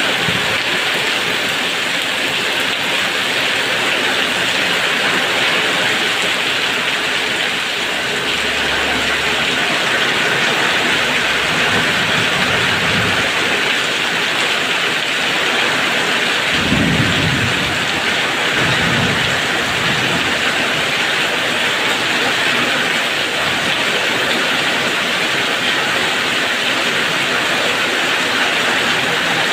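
Heavy, steady rainfall pouring down. A few low rumbles come through around the middle.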